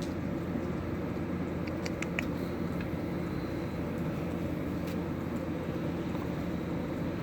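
Steady low background rumble, with a few faint light clicks about two seconds in and again near five seconds.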